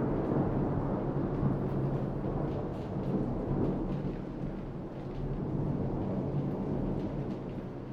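Rolling thunder rumbling on after a crack and slowly dying away, over the steady hiss of heavy rain.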